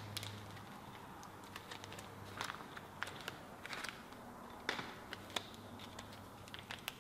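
Faint, scattered rustles and clicks of a clear plastic bag of small metal tool parts (drill bit, tap and bushings) being handled, over a low steady hum.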